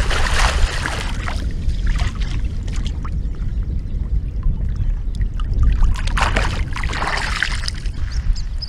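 Wind buffeting the microphone in a low rumble, with bursts of water splashing and sloshing near the start and again around six to seven seconds as a silver carp is put back into the water.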